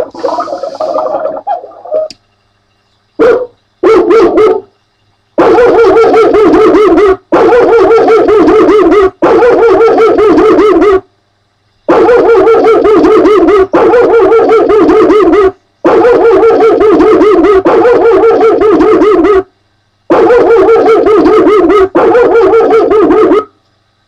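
Recorded dog barking played loud through the Secure Dog electronic watchdog's speaker. After two short bursts it comes in runs of rapid barks about two seconds long, with brief breaks between them. A different sound from the unit plays for the first two seconds and then stops.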